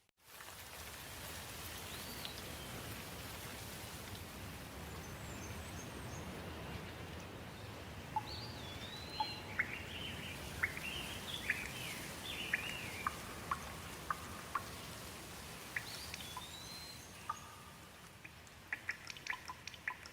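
Steady rain with a songbird singing over it in short whistled phrases, busiest in the middle. Near the end the rain thins and single drips tick sharply.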